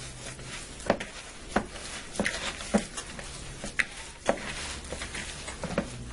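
Hands kneading raw ground beef mixed with egg and breadcrumbs in a plastic bowl: about seven irregular wet squishes and slaps, over a steady low hum.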